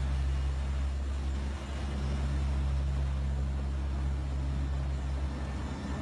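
Steady low drone of the NOAA WP-3D Orion's turboprop engines and propellers heard inside the cockpit, under an even hiss of air and rain rushing past the airframe during a flight through hurricane turbulence.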